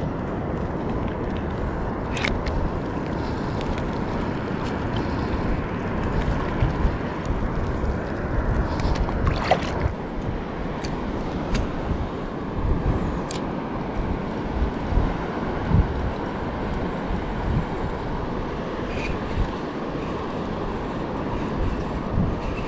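Strong wind buffeting the microphone over the wash of the sea, a steady, uneven rumble with a few sharp clicks.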